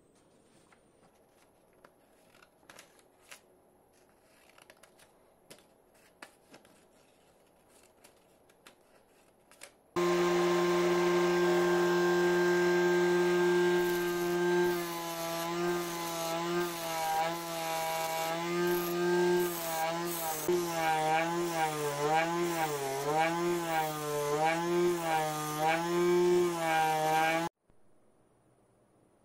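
Homemade bench grinder's 250 W, 12-volt permanent-magnet DC motor, starting abruptly about ten seconds in with a steady whine. From about fourteen seconds a metal strip is held to the grinding wheel, and the whine repeatedly sags and recovers in pitch as the load drags the motor down, with a grinding hiss over it. It cuts off suddenly near the end; before it starts there are only faint handling clicks.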